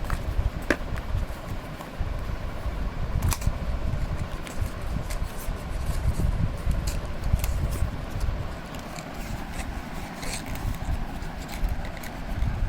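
Earbud packaging being handled: scattered light clicks and scrapes over a steady low rumble on the microphone.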